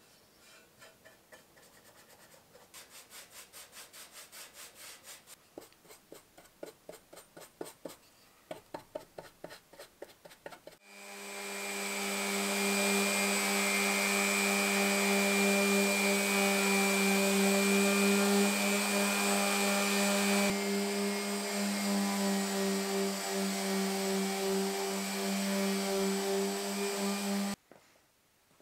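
Quick rhythmic rubbing strokes by hand on a small steel rack. About eleven seconds in, an electric orbital sander with a dust-extraction hose starts on the wooden cabinet top and runs steadily with a hum, then cuts off sharply near the end.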